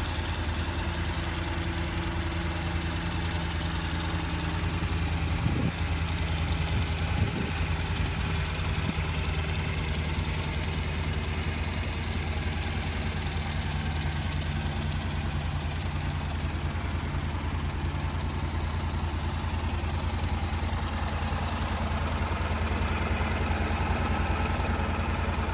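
Honda NC750X's liquid-cooled 745cc parallel-twin engine idling steadily, with two brief knocks a few seconds in.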